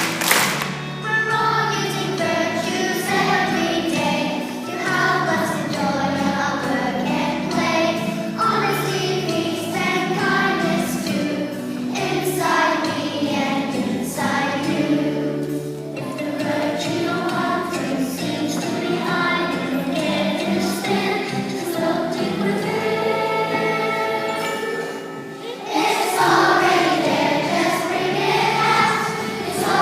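A group of young children singing together to a musical accompaniment. The singing gets louder about 26 seconds in.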